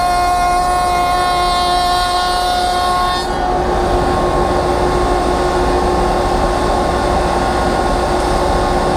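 Router in a router table running at speed with a large raised-panel bit, taking a full-depth cut along the edge of an MDF panel: a loud steady whine with several tones. About three seconds in the sound changes as the pass ends and the router runs on without cutting.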